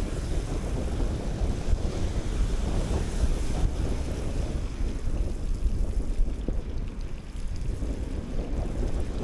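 Wind rumbling on the microphone of a camera riding along on a bicycle, over tyre and road noise from wet, slushy streets.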